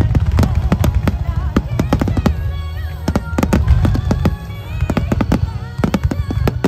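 Fireworks display bursting in rapid succession, many bangs and crackles close together over a continuous low rumble, with music playing through it.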